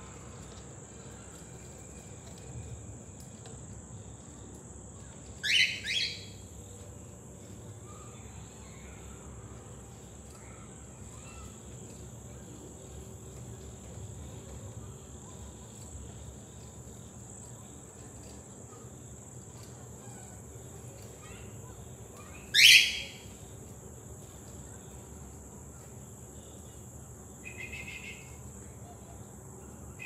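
Cockatiel giving short, sharp calls: a quick pair about five seconds in, a single louder one past the middle, and a fainter one near the end, over a steady high-pitched hum.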